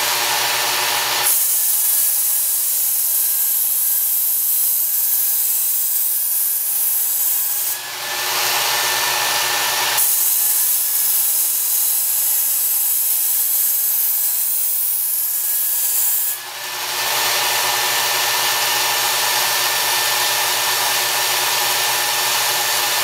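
Work Sharp Ken Onion Edition powered belt sharpener running steadily with a motor hum, while a steel knife edge is ground on its abrasive belt in two long passes of about six seconds each, heard as a stronger grinding hiss from about a second in and again from about ten seconds in.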